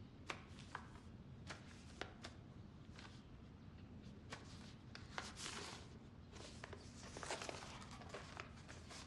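Quiet room with faint scattered clicks and two brief soft rustles, one about five seconds in and one about seven seconds in.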